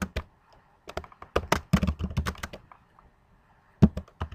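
Typing on a computer keyboard: a quick run of keystrokes, a pause of about a second, then a few more keystrokes near the end.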